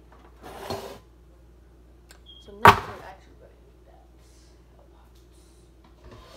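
A brief rustle, then one loud, sharp bang about two and a half seconds in, with a short ring after it.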